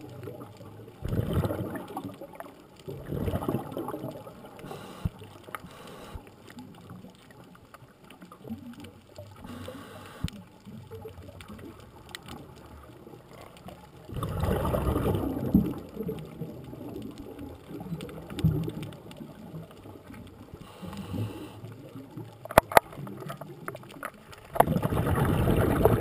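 Scuba diver's exhaled bubbles from the regulator, heard through the camera's waterproof housing: a few bursts of gurgling rush, one lasting about two and a half seconds, with quieter breaks between them. A few sharp clicks come near the end.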